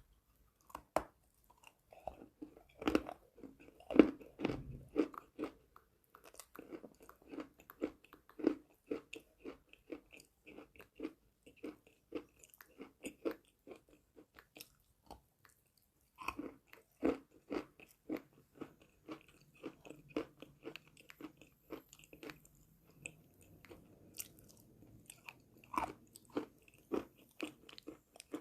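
Close-miked biting and crunching of chalk, rapid dry crunches with a brief pause about fifteen seconds in before chewing resumes.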